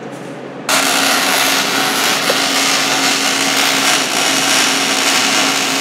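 MIG (GMAW) short-circuit transfer arc on 14-gauge sheet, starting suddenly about a second in and then crackling steadily as the wire repeatedly shorts into the weld puddle and re-arcs, under C25 (75% argon, 25% CO2) shielding gas. A low hum is heard before the arc strikes.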